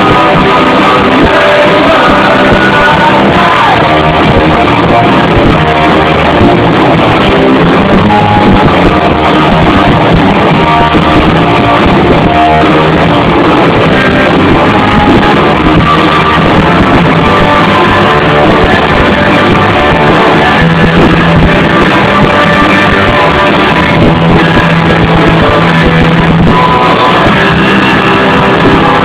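Punk rock band playing live at full volume, electric guitar and drums with a singer, heard through an overloaded phone microphone that makes it loud, flattened and muffled.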